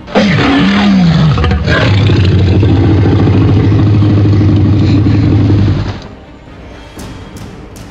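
A loud dinosaur roar sound effect dubbed onto a T-rex toy: it opens with a few cries that fall in pitch, then settles into a long, deep, steady growl that cuts off suddenly about six seconds in.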